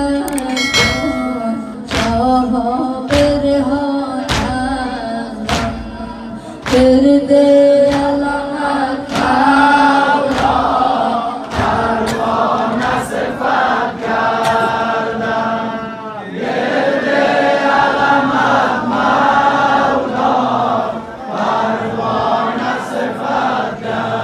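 A boy's solo voice chanting a mourning lament (noha) into a microphone, over sharp rhythmic chest-beating about once a second. From about nine seconds in, a group of voices joins in chorus.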